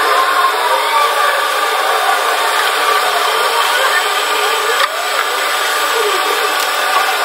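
Steady rubbing and scraping of floor cleaning with a long-handled squeegee on a wet tile floor, with short squeaky glides.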